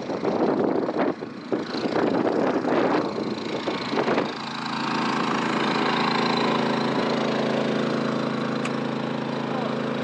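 Wind gusting against the microphone for about four seconds, then a small portable generator running steadily while it charges the truck camper's batteries.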